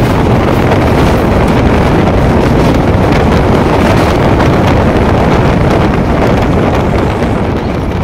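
Express passenger train running at speed, with loud wind buffeting the microphone over the rumble. It eases slightly near the end.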